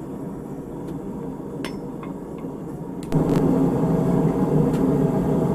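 Steady roar of the forge fire with a few light metallic clinks. About three seconds in, the roar jumps sharply louder and holds.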